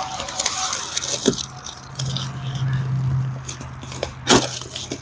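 Plastic emergency-shelter tent material crinkling and rustling as it is handled, with two sharp crackles, about a second in and near the end.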